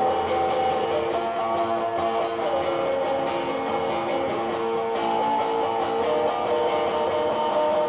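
Electric guitar being played: a line of held, ringing notes that change about once a second, with light pick attacks.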